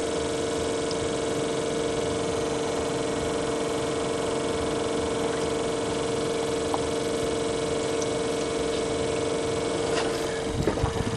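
1977 GMC truck's engine running steadily at idle with an even hum, fed on fuel poured straight down the carburetor from a bottle because its rusty, water-fouled carburetor and failing fuel pump won't feed it. A few knocks from handling near the end.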